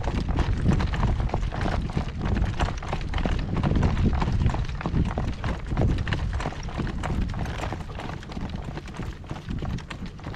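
A horse's freshly shod hooves clip-clopping steadily on a road, over a low rumble that eases off in the second half.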